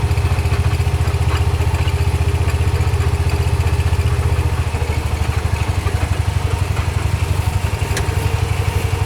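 Engine idling steadily: a low, even rumble of rapid regular firing pulses.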